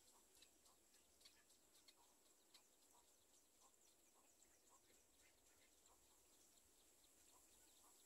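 Near silence: faint outdoor background with a steady high hiss and scattered faint short ticks.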